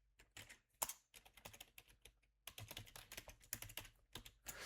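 Faint typing on a computer keyboard: a run of irregular key clicks with a short pause about two seconds in.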